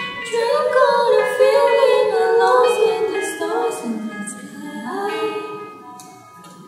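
A woman singing a cappella, long drawn-out notes that swell about a second in and fade away toward the end.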